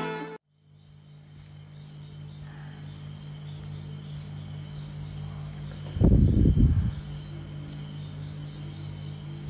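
A steady high chirping, pulsing a few times a second, over a low steady hum. About six seconds in there is a loud low thump lasting about a second.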